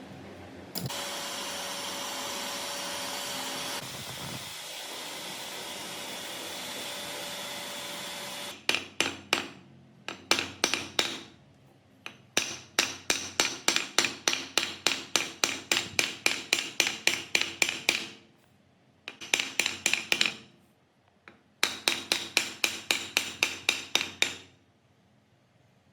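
A power tool whirs steadily for about eight seconds, then a hammer strikes rapidly and evenly, about four blows a second, in several runs with short pauses between them, as on metal parts of a rusty machine being restored.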